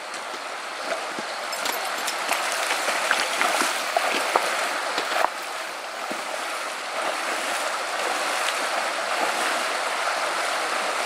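Steady rushing of shallow water over a stony creek riffle, with short splashes scattered through the first half as people and a dog wade through it.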